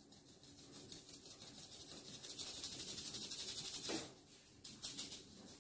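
Seasoned flour being sifted through a fine mesh sieve worked by hand: a faint, quick, even rustle that builds slightly and stops about four seconds in.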